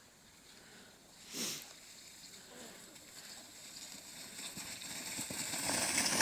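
Plastic sled hissing and scraping over packed snow, growing steadily louder as it comes down the slope toward the listener. A brief louder burst comes about a second and a half in.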